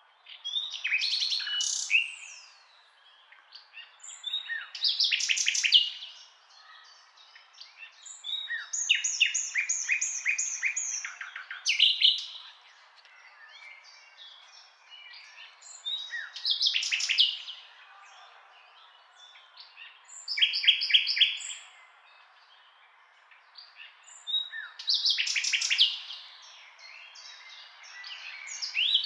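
Common nightingale singing: separate phrases a couple of seconds long, about every four seconds, each made of rapid repeated notes, trills and clear whistles, with short pauses between.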